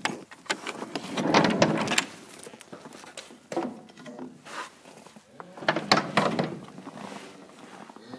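A large sliding barn door being pushed open, rattling and scraping in two loud stretches, one about a second in and another around six seconds in.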